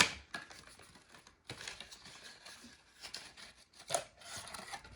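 Packaging rustling and crinkling as an alarm is taken out of its retail box: a sharp click at the start, then patches of handling noise with a louder rustle near the end.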